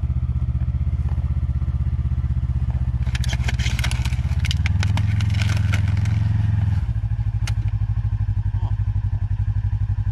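Side-by-side UTV engine running steadily, pulling harder for about two seconds mid-way and then settling back. From about three seconds in comes a few seconds of sharp cracking and crackling as the front tyre rolls onto a motocross helmet and crushes its shell.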